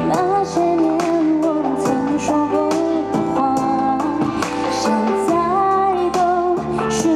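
Live pop ballad through a stadium sound system: band accompaniment with a wavering, held female vocal melody between the sung lyric lines.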